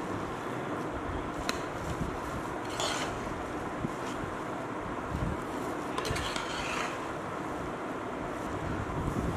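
A ladle stirring and turning cooked tomato rice in a metal pot, with a few brief scrapes against the pot over a steady low rumble.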